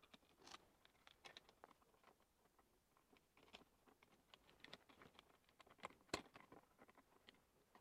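Faint, scattered clicks and rustles of cables being handled and pressed into a monitor arm's plastic cable channel, with one sharper click about six seconds in.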